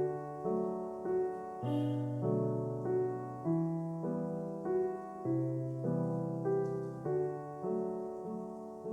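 Background music: a gentle piano melody, its notes struck at an even, unhurried pace.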